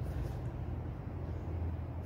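Steady low background rumble in an outdoor courtyard, with no distinct event standing out.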